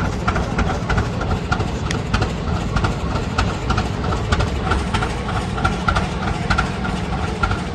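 Rumely OilPull S 30-60 tractor's big two-cylinder kerosene engine idling steadily, with an even, rhythmic beat.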